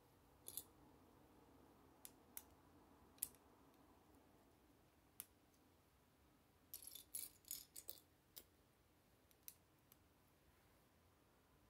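Small plastic Lego bricks clicking as they are handled and pressed together: faint, scattered sharp clicks, with a quick run of several about seven seconds in.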